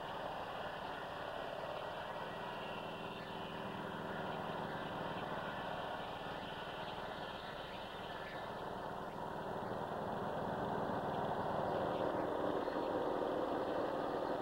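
Portable dimension sawmill's engine running steadily as its circular blade saws through a log. It gets louder in the last few seconds.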